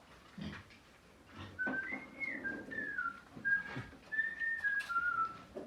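A person whistling a tune, a run of held notes stepping up and down, starting about a second and a half in, with a few scattered knocks and clunks.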